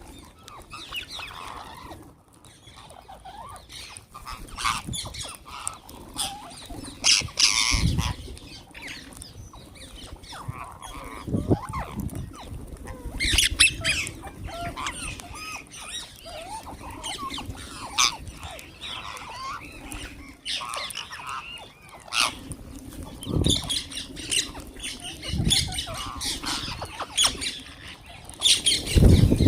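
A flock of wild green parrots squawking and chattering in many short, harsh, overlapping calls, with a few dull low thumps, the loudest near the end.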